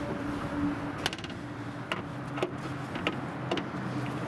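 A few light clicks and taps of a boat's rear deck hatch lid and its fittings being handled and shut, over a steady background hum.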